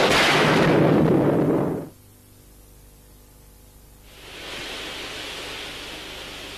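A loud rushing noise that cuts off sharply about two seconds in. After a short lull with a low hum, a steady hiss of steam fills a sauna.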